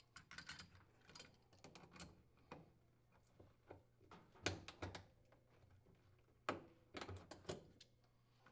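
Pliers working the wire spring hose clamps on a washer's pump hoses: faint, scattered light metal clicks and taps, the loudest about four and a half and six and a half seconds in.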